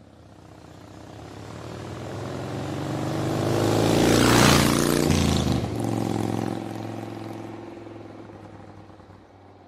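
Engine sound that swells gradually to a peak about four and a half seconds in, then fades away, like a vehicle passing by.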